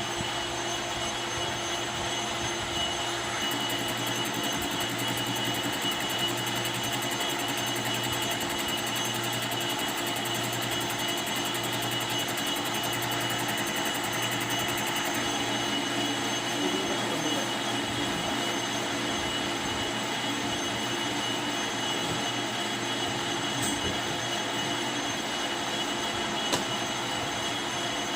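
Metal lathe running steadily: a constant machine noise with a steady high whine and a low hum, and a single sharp click near the end.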